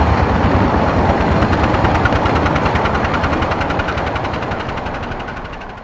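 Steam locomotive chuffing rapidly in even beats, growing steadily fainter and fading out at the end.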